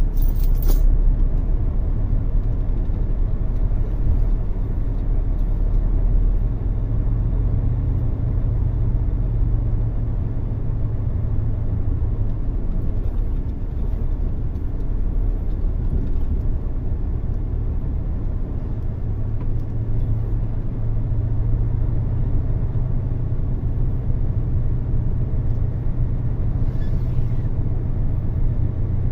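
Heavy truck's diesel engine running with a steady low rumble as the truck drives slowly, heard from inside the cab.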